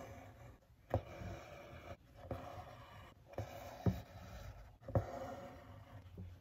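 Hand embroidery on denim stretched in a wooden hoop: a few sharp pops, irregularly spaced, as the needle punches through the taut fabric, with a soft rasp of thread being drawn through between them.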